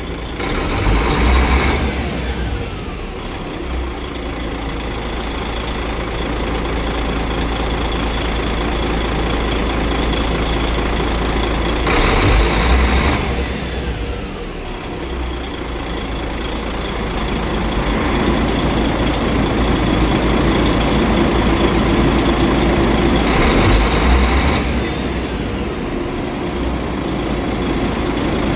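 DAF 105 truck's six-cylinder diesel engine running at raised speed during a diagnostic per-cylinder run-up test with the accelerator held down. It surges three times, about every eleven seconds, each surge dying away with a falling whine.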